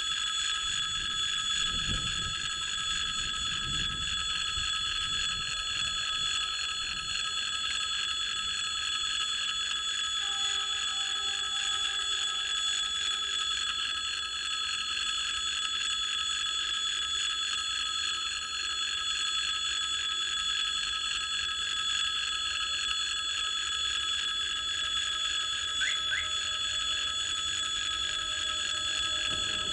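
Railway level-crossing warning bell ringing continuously and unchanging, the signal that the crossing is closed for an approaching train.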